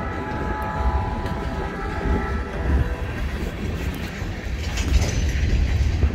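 Norfolk Southern freight train's hopper cars rolling past slowly, with a steady low rumble and wheel clacks. A train horn chord sounds at the start and fades out about two and a half seconds in.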